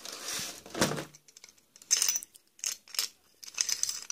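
Small metal nail-drill bits rattling in a clear plastic bit case as it is handled, with a series of separate plastic clicks, clatters and rustles.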